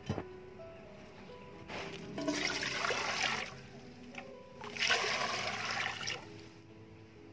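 Water at a rolling boil in a large aluminium pot, bubbling and rushing in two surges of a second or two each, over background music with steady notes.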